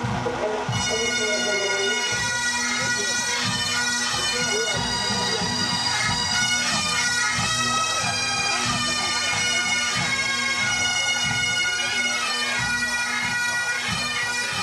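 Massed pipe bands playing Highland bagpipes together: a steady drone under the chanter melody. The pipes strike in about a second in.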